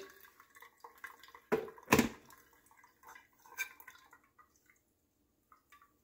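Hot water poured in a thin stream from a gooseneck kettle onto ground coffee in a paper-lined pour-over dripper, wetting the grounds for the bloom. Two sharp knocks come about one and a half and two seconds in as the kettle is set back down on its base, followed by a few small ticks.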